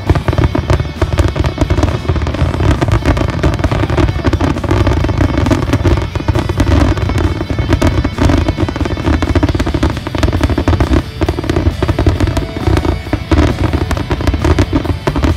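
Fireworks firing at close range in a dense, continuous barrage: rapid launches, bangs and crackling bursts with no pauses.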